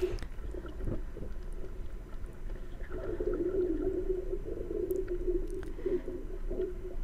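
Muffled underwater sound picked up by a GoPro Hero 10 while snorkelling over a coral reef: a low, wavering wash of water with a few faint clicks.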